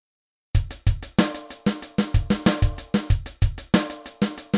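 Funky drum-kit beat: quick hi-hat hits over a bass drum and snare pattern, starting about half a second in.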